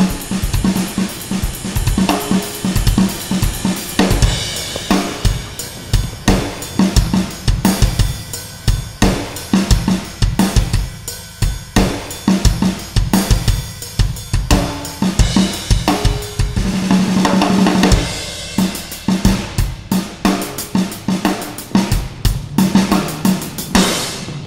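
Drum kit playing a fast, driving beat of snare, bass drum, cymbals and hi-hat. The hits break off near the end, leaving a quieter tail.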